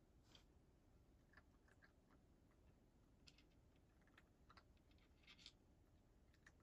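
A domestic cat eating from a dish, with faint, irregular crunches and clicks as it chews.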